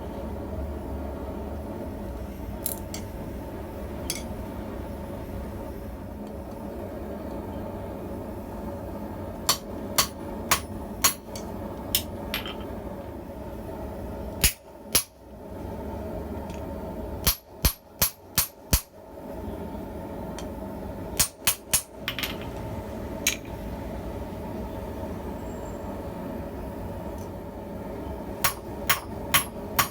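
Hand hammer striking hot steel on an anvil while forging a blacksmith tong half: scattered single blows, a few quick clusters, then a fast run of about three to four blows a second near the end, over a steady hum.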